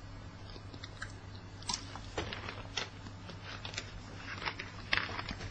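A man drinking water close to the microphone: faint scattered clicks and mouth sounds of sipping and swallowing, over a low steady hum.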